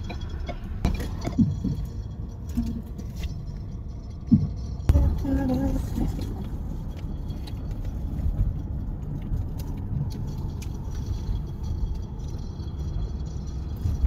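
Steady low road and engine rumble inside a moving car's cabin, with a couple of sharp knocks about four to five seconds in.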